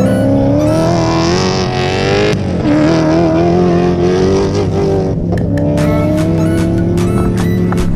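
Rally car engine accelerating hard past, its pitch climbing, dropping at a gear change about two and a half seconds in and climbing again, with a hiss of tyres on dirt in the first couple of seconds. Background music with a steady beat runs underneath and comes forward in the second half.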